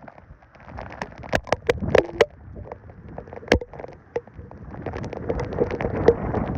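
Rain and wind noise on the microphone, with scattered sharp clicks and knocks, growing louder in the second half.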